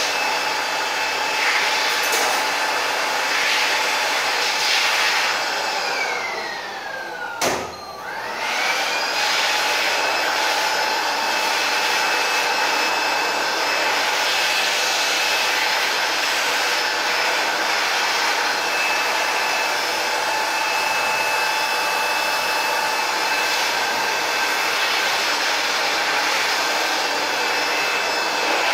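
Steady whirring, hissing machine noise like a fan or blower. About seven seconds in, a whine falls in pitch and there is a sharp click, then the whine rises again.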